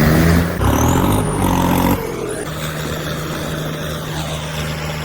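Tractor engine running loud, its pitch shifting, then dropping to a quieter, steady drone about two seconds in.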